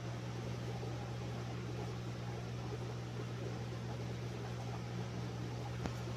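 Steady low mechanical hum with an even hiss over it, and a single light click near the end.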